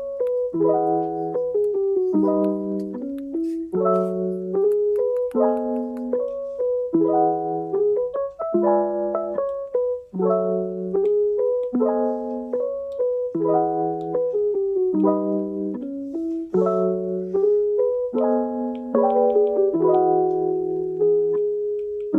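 Background music: a gentle piano or electric-piano tune of repeating chords with a steady rhythm.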